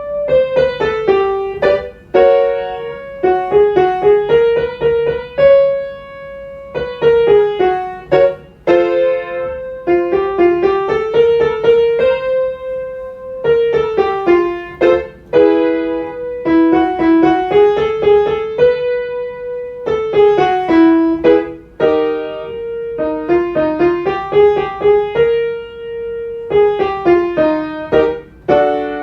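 Piano playing a vocal warm-up exercise: five-note scale figures stepping up and down, with a held note between runs, repeated over and over.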